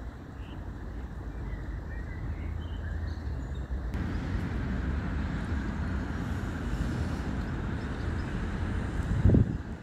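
Steady low outdoor rumble that gets louder about four seconds in, with a short, loud low thump near the end.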